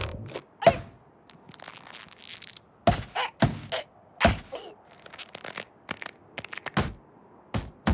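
Cartoon impact sound effects: a string of irregular hollow thunks and knocks, about a dozen, as a wooden tube swings and bangs about.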